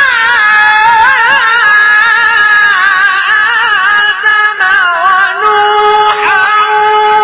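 A sheikh's voice chanting Arabic recitation in one long unbroken breath, with quick ornamental turns of pitch that settle into a steady held note about five and a half seconds in.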